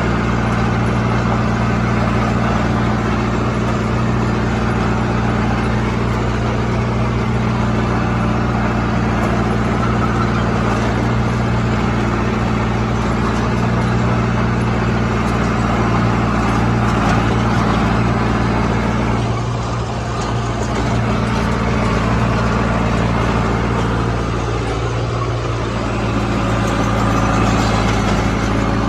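Diesel engine of a John Deere 455E crawler loader running steadily under work, with a couple of brief dips in engine load along the way.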